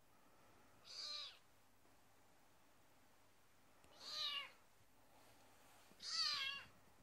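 Kittens mewing: three short, high-pitched meows, about a second in, about four seconds in, and near the end, the last two louder than the first.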